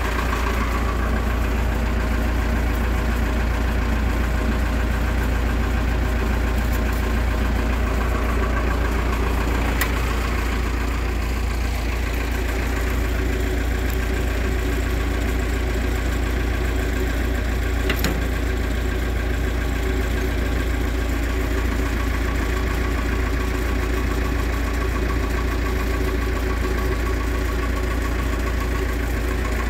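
An engine idling steadily, with two faint clicks, about ten and eighteen seconds in.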